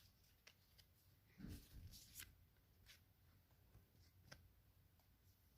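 Faint handling of trading cards: a few soft flicks and slides as cards are moved through a pack between names.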